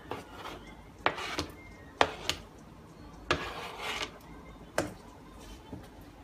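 Black slotted spatula scraping and knocking against a cutting board and a nonstick wok as chopped garlic is pushed into the pan and stirred with the onions. About five sharp knocks, with a longer scrape a little past the middle.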